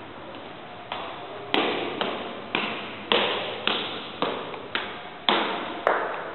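Footsteps on tiled stairs, one sharp echoing step about every half second, with softer steps in the first second and a half.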